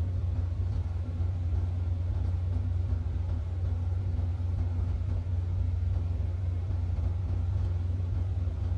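Steady low rumble of an idling truck engine, heard from inside the cab.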